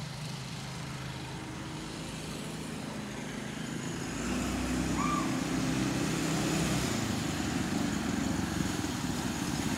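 Small go-kart engine powering a homemade canoe art car, running steadily as it approaches and growing louder about four seconds in.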